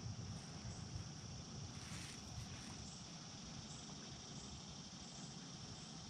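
Faint, steady, high-pitched insect chorus over a low rumble, with a brief rustle about two seconds in.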